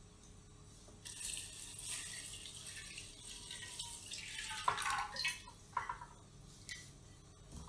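Liquid pouring in a steady stream for about three and a half seconds, then a few short knocks.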